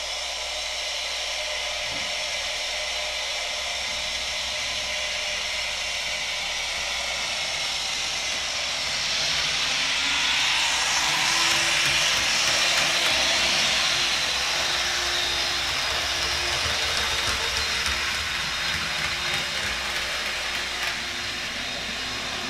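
Rapido N scale Turbo Train's LokSound sound decoder playing a steady turbine whine and hiss as the model runs at full throttle. It swells loudest about halfway through as the train passes close by, then eases off.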